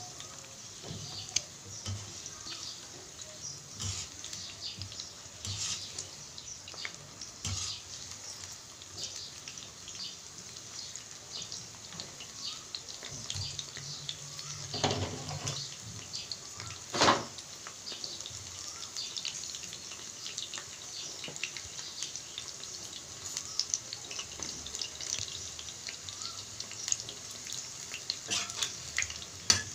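Battered soybean lollipops deep-frying in hot oil, a steady crackling sizzle with scattered small pops. A single sharp click stands out about halfway through.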